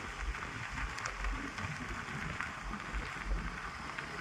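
Outdoor wind noise: a steady hiss with irregular low buffeting rumbles on the phone's microphone.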